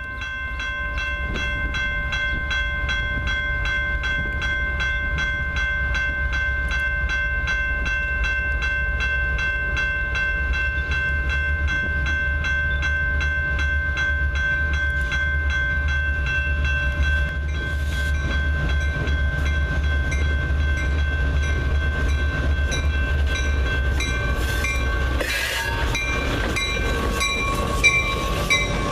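A CSX freight train's diesel locomotives rumbling as they approach and pass close, while a bell rings in quick, steady strokes. Near the end the bell grows brighter and a few sharp knocks come from the passing locomotives.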